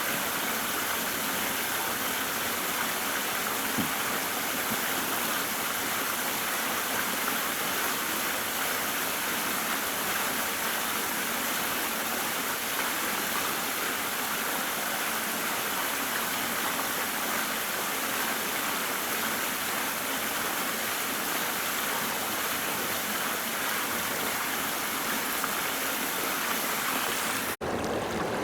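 Steady rushing noise like running water. It breaks off abruptly about a second before the end and resumes with a slightly different character.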